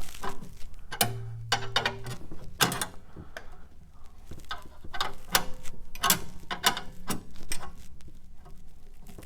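Irregular metallic clicks and clinks of a wrench on fittings and loose engine parts as a stubborn connection is worked free.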